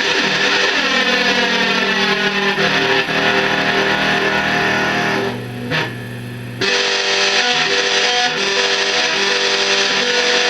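Electric guitar strings ringing through an FX50 effects processor and amplifier, the sustained notes coloured by a sweeping processed effect. The sound drops back about five seconds in, and fresh notes ring out again about a second later.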